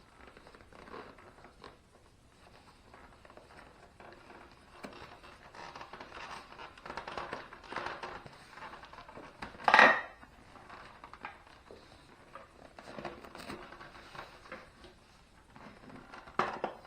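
Hands working with wiring harness and plastic parts: irregular rustling, scraping and small clicks and knocks, with one short loud clatter about ten seconds in and a smaller knock near the end.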